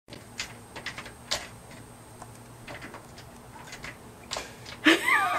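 Scattered light clicks and knocks, then about five seconds in a short, loud, high-pitched squeal that wavers up and down.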